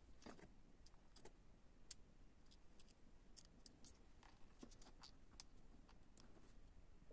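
Faint, scattered clicks and taps of a plastic OBD diagnostic connector housing being handled and pried at, with one sharper click about two seconds in.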